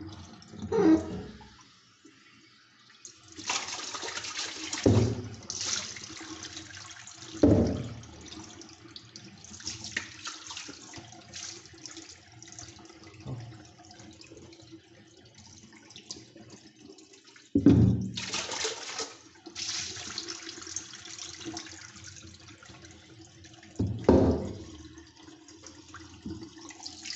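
Tap water running and splashing into a sink basin as canister filter parts are rinsed, with about five loud thumps from the plastic filter parts being handled in the basin.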